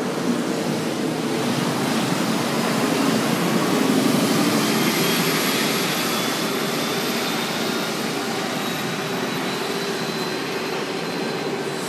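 City bus and traffic on a wet street: engine running and tyres hissing, swelling to its loudest about four seconds in, with a faint whine that slowly rises in pitch.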